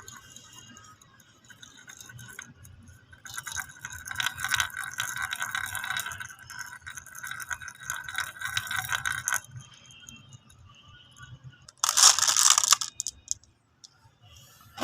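Marbles clicking and rattling against one another in a fast, dense run of clicks for about six seconds, starting about three seconds in. A short, loud clatter follows near the twelve-second mark, and another comes right at the end.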